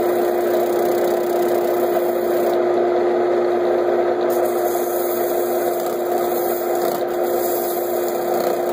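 Wood lathe running with a steady hum, spinning a green natural-edge bowl while sandpaper on a flexible pad, folded over, rubs against the inside with a continuous hiss.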